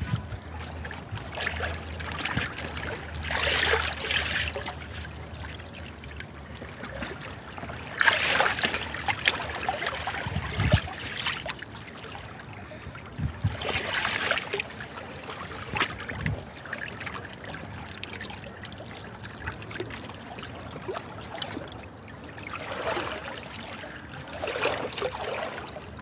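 Water running and trickling, with louder splashing swells every few seconds.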